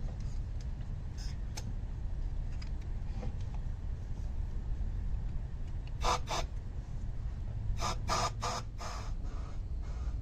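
Short blasts of compressed air from a blow gun into the fuel-injector port of cylinder 4 at top dead center: two quick bursts about six seconds in, then about four more around eight seconds, over a steady low rumble. It is a leak check in which the air still reaches the exhaust, which the owner takes for a probably broken exhaust valve.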